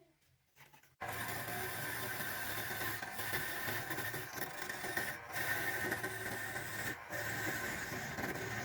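A power tool working wood: a steady machine hum with rasping, starting abruptly about a second in after a near-silent gap, with a couple of brief dips.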